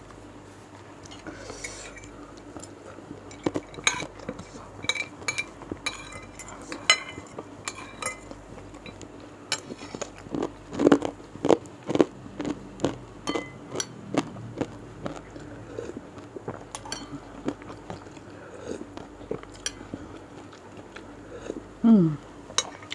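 A metal spoon clinks and scrapes against a ceramic bowl of bakso meatball soup again and again, with chewing close to a clip-on microphone. The clinks come thickest about halfway through. Near the end there is a short, loud, falling hum of the voice.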